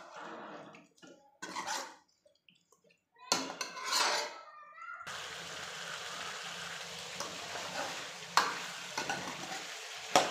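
A steel ladle scrapes and knocks against a metal kadai while spiced green tomato pieces are stirred, at first as a few separate scrapes. About halfway through a steady sizzle of the frying sabji sets in, broken by a couple of sharp knocks of the ladle on the pan.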